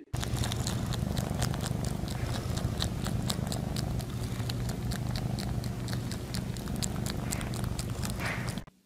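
Cat purring steadily, with many quick sharp clicks from its mouth and tongue as it licks.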